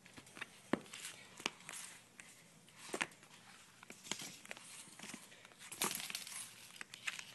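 Children's board books being handled: stiff cardboard pages and covers tapping and knocking against each other in scattered clicks, with a brief rustling shuffle about six seconds in.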